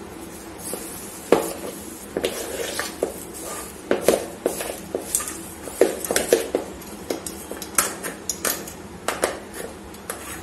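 Metal utensil knocking and scraping against a plastic bowl while chopping frozen vanilla ice-cream base into small pieces: irregular clicks, taps and scrapes.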